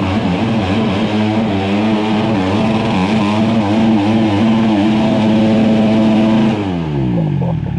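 Dirt bike engine revving hard, its pitch wavering up and down at high revs, then falling away about six and a half seconds in and settling toward idle.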